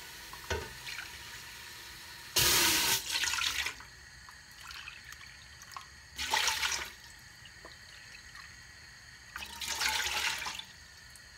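Cupfuls of water poured from a plastic measuring cup into a large metal cooking pot: three separate pours, the first the longest and loudest.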